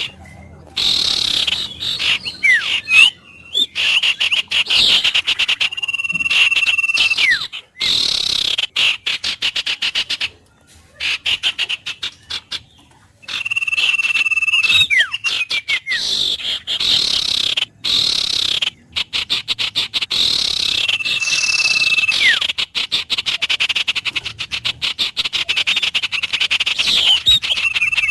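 Wild birds calling: fast pulsing trills and chirps, with a held whistled note and quick falling glides that come back about every seven seconds.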